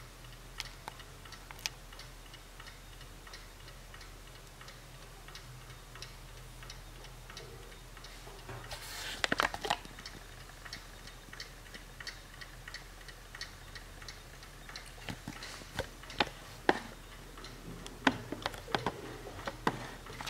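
Serviced 1960s Hermle mechanical mantel clock ticking steadily. About nine seconds in there is a louder cluster of clicks and rustle, and several sharper knocks come near the end.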